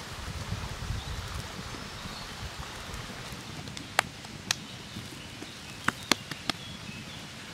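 Salt sprinkled by hand onto a raw buffalo steak and a wooden board: light pattering grains with a few sharp ticks in the second half.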